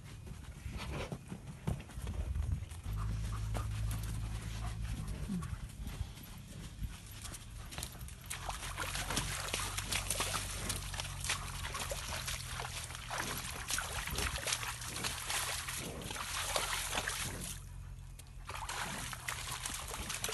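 An Anatolian Shepherd dog walks and dabbles in a wet mud wallow: wet squelching and sloshing with many small crackling clicks, thickening about a third of the way in, and the dog panting. A steady low hum runs underneath.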